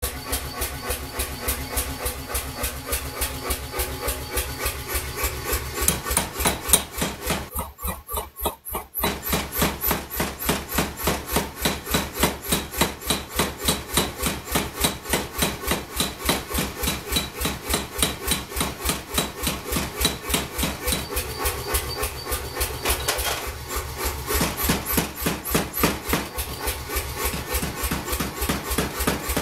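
Forging hammer striking a heated steel handle blank in a fast, even rhythm of about four blows a second, with a steady low hum underneath. The blows pause briefly about eight seconds in, then carry on.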